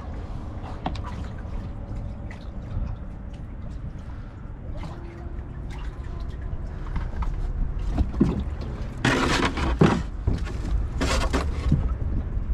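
Water lapping and splashing around a small wooden rowboat as it is brought up alongside a moored catamaran's hull, with wind rumble on the microphone and scattered small knocks. About nine seconds in, and again about eleven seconds in, come two short, louder rushes of splashing.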